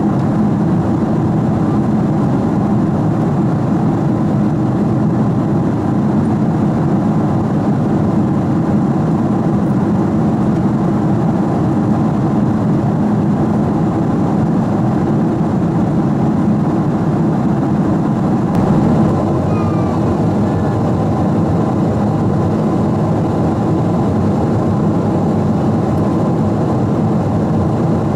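Boeing 777-200 airliner in flight, heard inside the cabin: a steady, even rush of engine and airflow noise.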